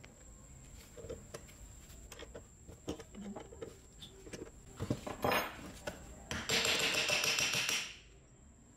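Steel tools clinking and knocking as a two-jaw gear puller is fitted to the gear in an old electric drill's gear housing. Near the end comes a loud harsh rasping noise lasting about a second and a half, which stops suddenly.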